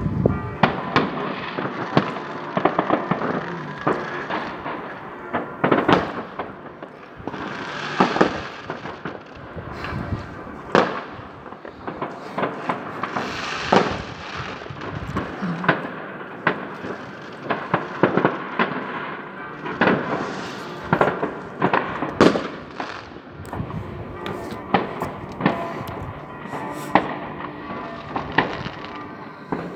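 Fireworks going off: many sharp bangs and crackles in quick, irregular succession over a constant din of further blasts.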